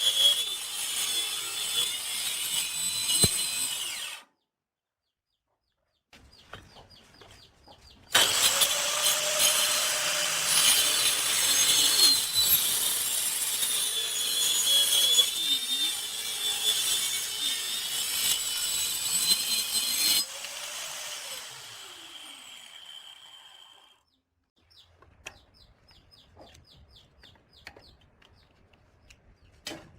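Angle grinder running with a steady high whine as it works wood. It stops about four seconds in, runs again from about eight seconds to about twenty, then winds down, followed by light scattered ticks.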